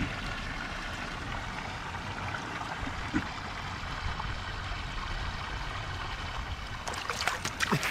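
River water running steadily past a concrete bank, with a few clicks and rustles near the end.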